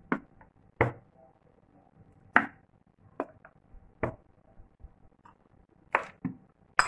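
A steel spoon, a plastic squeeze bottle of chili sauce and a small ceramic bowl being handled as the sauce is spooned into the bowl: about seven short, sharp taps and clicks, irregularly spaced, over a faint steady hum.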